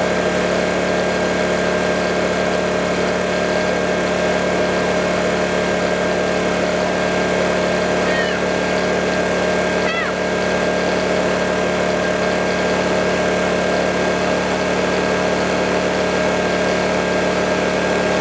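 Honda EX800 portable generator's small four-stroke engine running at a steady, even speed after standing unused for five or six months.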